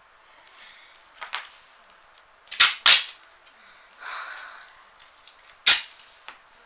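Packing tape being pulled off the roll and torn in short, sharp rips: two in quick succession about two and a half seconds in, a softer rasp around four seconds, and another sharp rip near the end.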